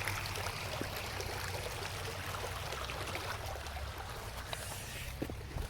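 Small creek waterfall: a steady rush of running, splashing water.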